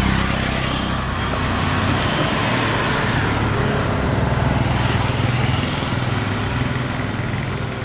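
ALCo WDM3A and EMD WDP4 diesel locomotives running at a standstill, a loud, steady low engine drone, with a continuous haze of higher noise over it.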